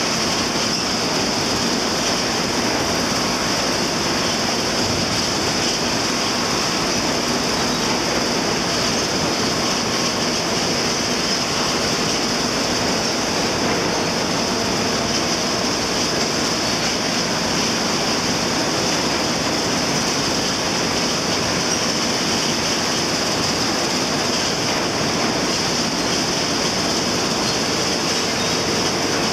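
Processing machinery in an oil palm mill running steadily: conveyors and a turning shaft working palm fruit bunches. It makes a dense, even mechanical din with a strong high hiss and a faint steady hum.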